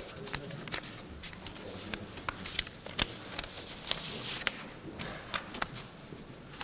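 Footsteps and shuffling on a hard floor: irregular sharp clicks and knocks over a low murmur of the room, with a brief rustle about four seconds in.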